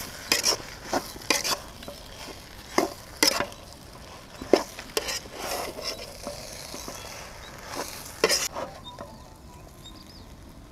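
A spatula stirring and scraping a thick cutlet filling of mashed potato and ground beef masala around a frying pan, with irregular knocks and scrapes against the pan over a soft sizzle.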